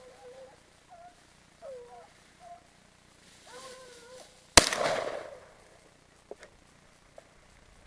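Hunting dogs baying in short calls, then a single loud gunshot about four and a half seconds in that rings out briefly: a shot at the wild boar the dogs have bayed, which is then called out as killed.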